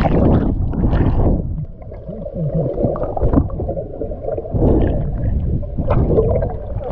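Muffled underwater rumbling and gurgling of moving water heard through a submerged camera, with splashier stretches near the start and again about two-thirds of the way through.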